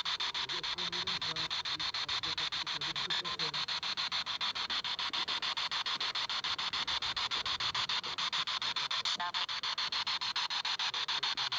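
Handheld ITC spirit box sweeping rapidly through radio frequencies, giving a fast, even chopping of static and hiss. Faint snatches of voice come through in the first few seconds.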